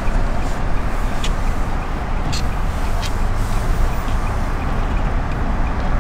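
Steady road and engine rumble inside the cabin of a moving car, with a few faint clicks between one and three seconds in.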